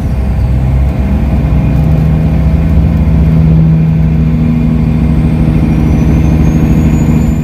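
Kenworth W900L semi truck's diesel engine running steadily while driving, a loud low drone heard from inside the cab.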